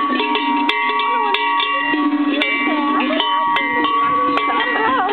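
Several cowbells worn by grazing alpine cows, clanking at irregular moments, each strike ringing on in overlapping tones.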